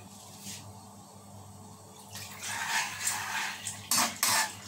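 Water poured from an electric kettle into a pan of coconut milk, a splashing hiss that starts about two seconds in. There are two sharp knocks near the end.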